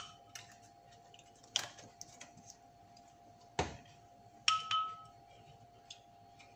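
Spatula stirring salad dressing in a small glass bowl, clinking against the glass a few times: a dull knock about three and a half seconds in, and a sharper clink with a short ring from the glass about a second later. A faint steady hum lies underneath.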